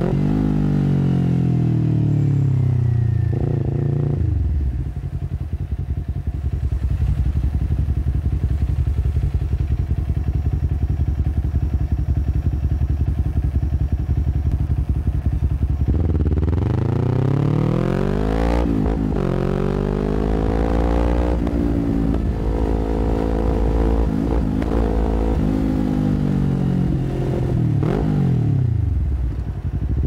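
Kawasaki Ninja 400 parallel-twin engine through an Akrapovic full-system exhaust. The revs fall away and it settles into a steady idle for about ten seconds. It then pulls away with rising revs, dips briefly at a gear change, holds, and winds down again near the end.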